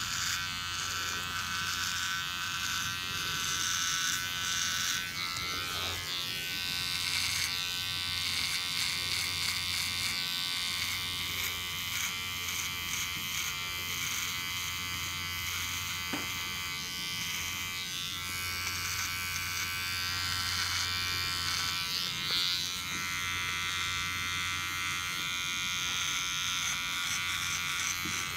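Electric barber clippers running with a steady buzz, the tone shifting a little as they work.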